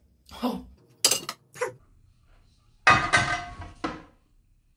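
Eating sounds with a small ceramic sauce bowl knocking and scraping against a plate: a few short clinks, then a longer, louder clatter about three seconds in.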